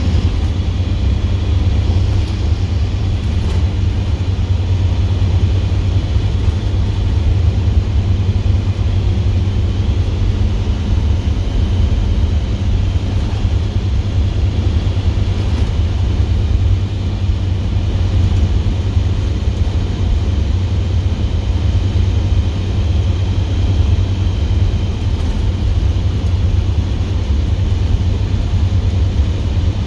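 International DT466E inline-six turbo diesel with a straight-piped exhaust, pulling a bus along at a steady cruise: a loud, steady, deep drone heard from inside the cab.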